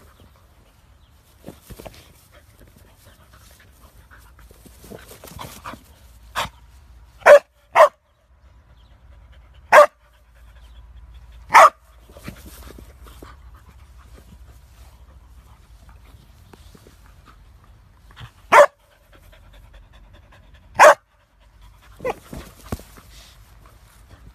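A dog barking in short, sharp single barks at irregular intervals, a few of them in quick pairs, while playing with a soccer ball, with breathing noise between the barks.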